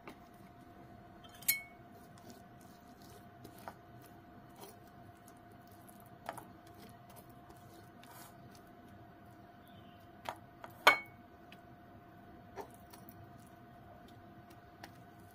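Metal fork clicking and scraping on a ceramic plate, with scattered light taps and two sharp ringing clinks, one about a second and a half in and a louder one about eleven seconds in. A faint steady hum runs underneath.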